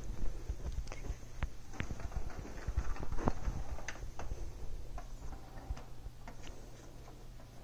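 Irregular light clicks and taps of a kitten pawing at a plastic ball-track cat toy, the ball knocking against the plastic track, over a steady low hum.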